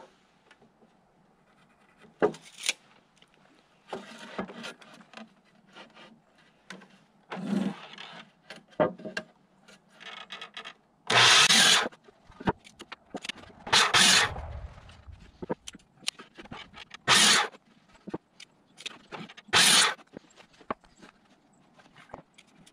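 Boards scraping and knocking against a sliding miter saw as they are positioned, then four short, loud bursts of the saw cutting 45-degree corners off a treated board, about a second each, in the second half.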